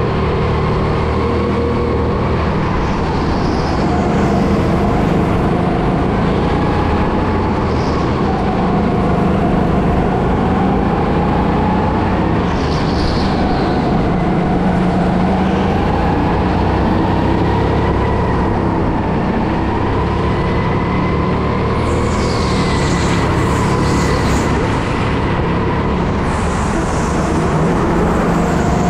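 Go-kart running at racing pace on track: a motor whine that rises and falls with speed over a steady rumble, with short high squeals now and then, several close together near the end.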